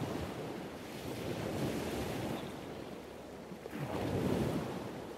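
Soft rustling handling noise as fingers turn a coin in a clear plastic capsule over close to the microphone, swelling twice.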